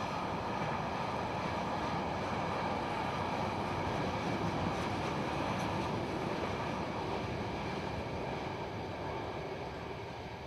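A long train of loaded wagons rolling steadily along the track, a continuous rumble of wheels on rail that starts to fade near the end as the train draws away.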